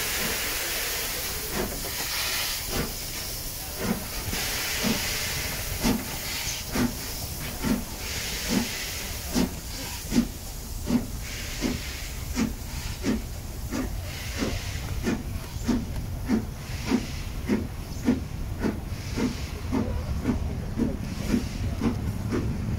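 LMS Princess Coronation Class 4-6-2 steam locomotive Duchess of Sutherland pulling away with a train: evenly spaced exhaust beats that quicken from about one a second to nearly two a second as it gathers speed. A hiss of steam is strongest in the first half, and the rumble of the coaches rolling past grows toward the end.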